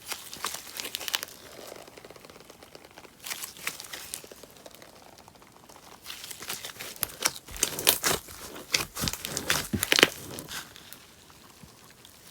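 Paper clay slime being squeezed, stretched and pulled apart by hand, giving clusters of small crackles and snaps in spurts. The busiest and loudest stretch is from about seven to ten seconds in.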